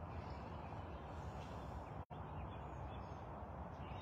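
Quiet outdoor ambience: a steady low rumble and hiss with faint distant bird chirps. The sound cuts out completely for an instant about two seconds in.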